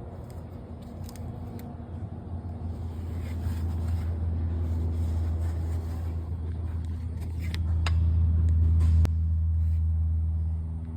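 A low engine hum, steady in pitch, growing louder over several seconds, with a few light clicks and a sharper click about nine seconds in, after which it eases slightly.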